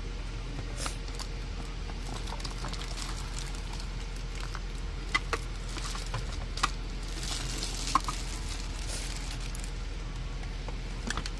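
A cardboard box and its packaging being handled and opened: scattered taps and clicks, with a stretch of rustling about seven seconds in, over a steady low hum.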